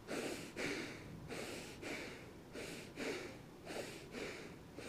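A person doing bhastrika (bellows breath) pranayama: forceful breaths in and out through the nose in an even rhythm, about two strokes a second.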